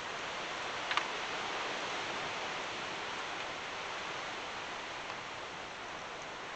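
Steady hiss of wind on the microphone, with a light click about a second in.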